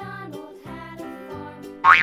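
Cheerful children's background music with a simple tune. Near the end a loud sound effect with a pitch that wobbles up and down comes in over it.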